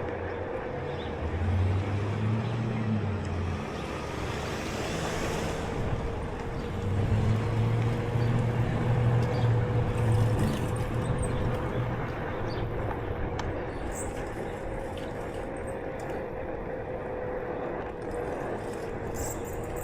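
Street traffic: motor vehicles passing with low engine rumble that swells twice and with road noise. A steady whine that wavers slightly in pitch runs beneath.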